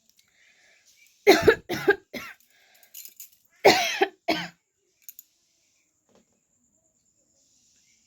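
A woman coughing deliberately in two short fits of about three coughs each, a couple of seconds apart.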